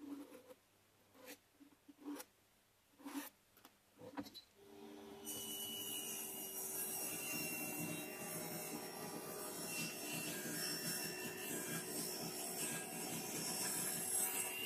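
About five short pencil strokes scratching along a metal rail on plywood, then a jigsaw mounted under a table starts running, about five seconds in, and its blade cuts steadily through a plywood board.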